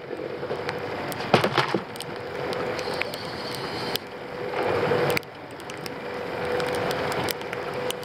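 Wind and rough water rushing against a wooden freighter canoe, with a steady hum underneath and scattered sharp knocks on the wooden hull.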